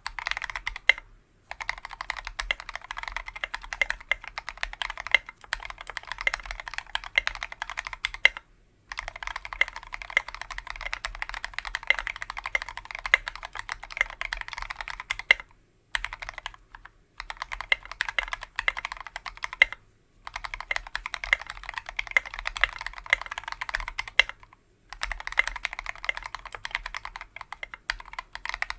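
Fast typing on a KBDfans Tofu 60% mechanical keyboard with a brass plate, lubed Tealios V2 linear switches and SA-profile keycaps. The keystrokes come in dense runs broken by short pauses about six times.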